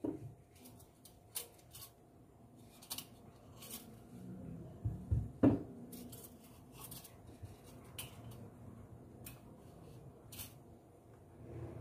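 Faint, scattered clicks and knocks of a tape measure and a small wooden stool being handled on a countertop, with one louder knock about five and a half seconds in.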